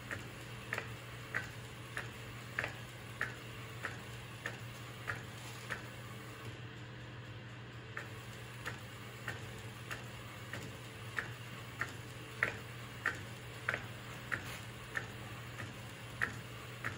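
Epson SureColor P405 DTF printer printing: its print-head carriage shuttling back and forth gives a sharp click about every two-thirds of a second over a steady low hum. The clicks pause for about two seconds near the middle, then resume at the same pace.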